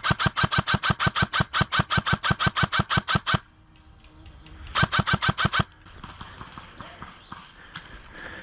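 Airsoft electric rifle (ICS PAR MKIII S-AEG) firing a rapid string of shots, about eight a second, for some three and a half seconds, then a second, shorter string of about a second after a brief pause.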